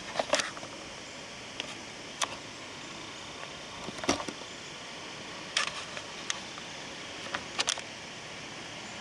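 Woodpecker chiselling into a tree trunk to dig out a nest cavity: about ten sharp, irregularly spaced taps, some in quick pairs, over a steady wind hiss.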